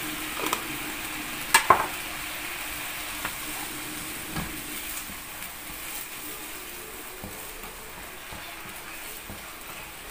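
Diced beef sizzling steadily in a nonstick frying pan as a wooden spatula stirs it, with a few sharp knocks of the spatula against the pan, the loudest about one and a half seconds in.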